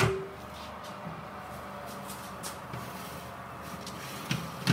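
Oven door swinging open with a clunk, then the oven's convection fan running with a steady hum while a metal baking tray clicks and scrapes on its runners as it is slid out, with a sharper clack near the end.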